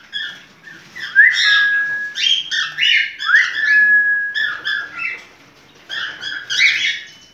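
An animal calling: a series of loud, pitched calls, two of them rising swoops that level off into a held whistle-like note.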